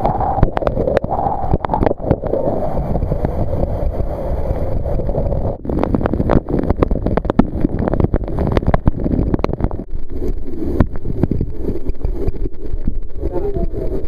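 Waterfall pouring onto the camera's microphone: a loud, steady rush of falling water with constant crackling splashes of drops striking the mic.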